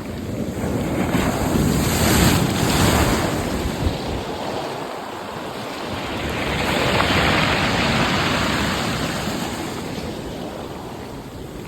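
Sea waves breaking and washing in, surging twice a few seconds apart, with wind buffeting the microphone.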